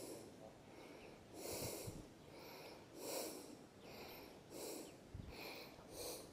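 Water snake hissing: a faint string of short hisses, roughly one a second.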